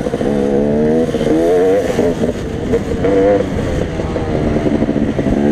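Off-road motorcycle engine running under load while being ridden, its pitch climbing and falling repeatedly as the throttle is opened and eased.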